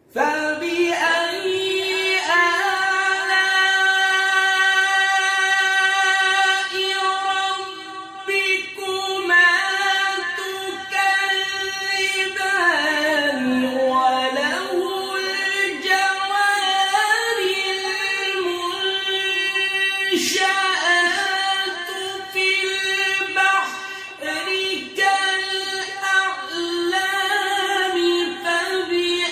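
A single high voice chanting a melodic religious recitation, unaccompanied, with long held, ornamented notes and a falling run about halfway through.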